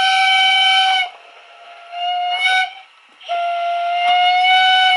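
Steam locomotive whistle played by the DCC sound decoder of a Lenz O gauge DB Br98.8 model: a steady whistle that stops about a second in, a short blast around two seconds in, and a long blast starting just after three seconds.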